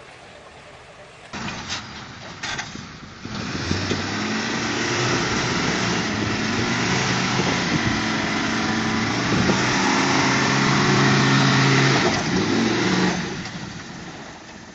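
Heavy-duty pickup truck engine revving hard under load while it strains to pull a gooseneck trailer loaded with round hay bales, its rear wheels spinning and spraying dirt. A few knocks come first, then the engine runs loud for about ten seconds and dies away near the end.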